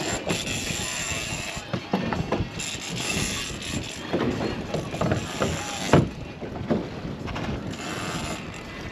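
Irregular mechanical clicks and knocks over wind and water noise on a boat, with one sharp knock about six seconds in.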